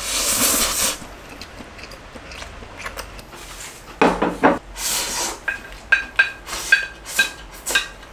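A mouthful of stir-fried ramen noodles slurped in, then a brief louder noise about four seconds in. After that, chopsticks click against the plate again and again as the noodles are shovelled from the lifted plate into the mouth.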